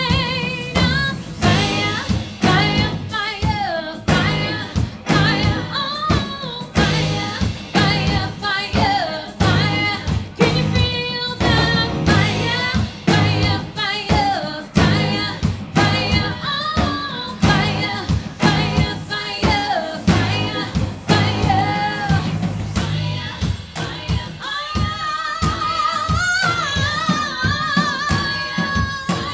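A woman singing a pop-rock song live with a band of drum kit, electric bass and keyboard, her voice wavering with vibrato. Near the end she holds a long note.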